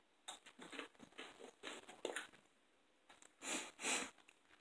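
Crunching of tortilla chips being chewed close to the microphone: a run of irregular crisp crunches, the two loudest near the end.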